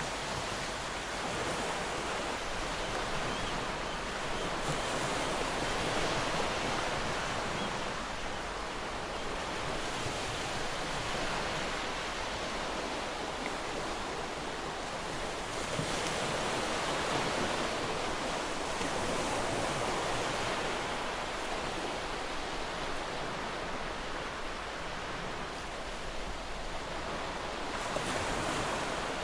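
Sea waves washing on the shore, a steady rush of noise that swells and eases several times.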